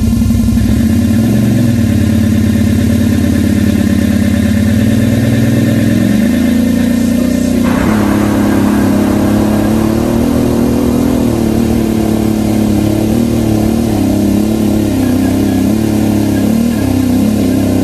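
Quad (ATV) engine running under way off-road, its pitch rising and falling with the throttle. About eight seconds in the sound changes abruptly, with more rushing noise over the engine.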